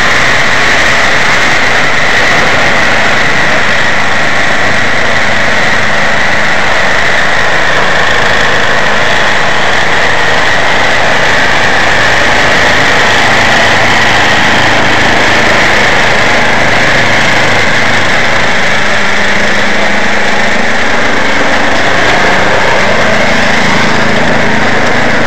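Two-stage gas snowblower's small engine running steadily under load, a loud unbroken drone.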